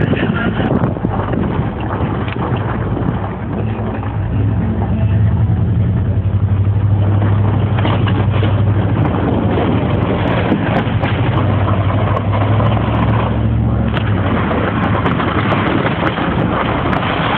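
Dodge Ram pickup truck's engine running steadily while plowing snow, a continuous low drone that grows a little louder about five seconds in.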